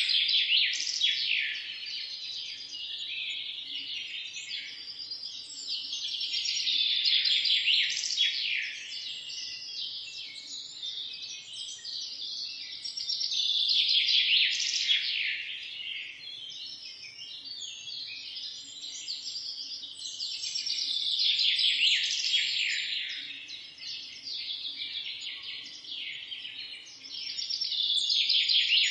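A chorus of many small birds chirping and twittering at once, a dense unbroken stream of quick high calls that swells and fades about every seven seconds.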